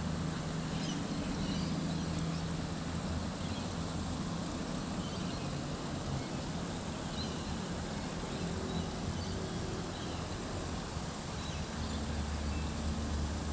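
Steady outdoor background noise with a low rumble, and faint bird chirps here and there.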